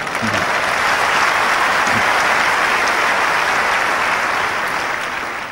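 Large tennis crowd applauding at the end of a point, starting sharply and holding steady, easing slightly near the end.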